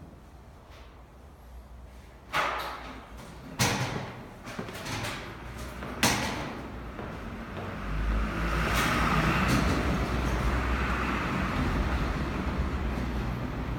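A door or sliding window is handled with several sharp clacks and knocks, then a steady rumble of city traffic sets in and carries on.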